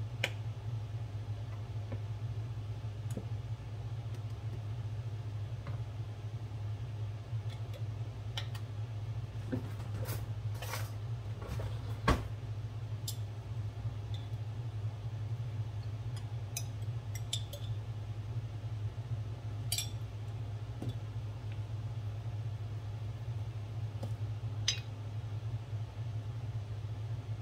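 Scattered light clinks and taps of a spoon against a glass mixing bowl and jars as condiments go into tuna salad, with one sharp knock about twelve seconds in, over a steady low hum.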